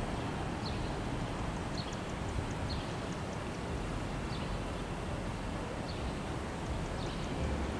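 Steady outdoor background of wind and passing road noise, with a bird giving a short, high chirp about once a second.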